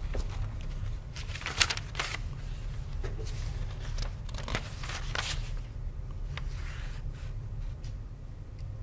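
Sheets of paper rustling as documents are handled and leafed through, in several short bursts, over a steady low hum.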